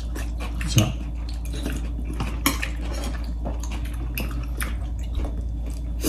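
Metal spoons and forks clinking and scraping against ceramic bowls and plates during a meal, as a run of scattered light clinks about a second apart.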